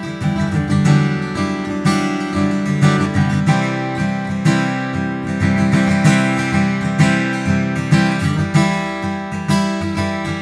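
Taylor PS14ce acoustic-electric guitar played unaccompanied, strummed and picked chords with frequent string attacks.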